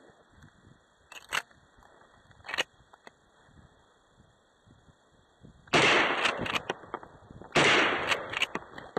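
Two 12-gauge shotgun shots about two seconds apart, each loud and sharp with a ringing tail that dies away over about a second. Two lighter mechanical clicks come a few seconds before the first shot.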